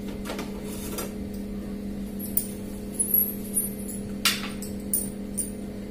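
Light clinks and taps of a steel plate and knife set down and moved on a stone kitchen countertop: several separate strikes, the loudest about four seconds in, over a steady low hum.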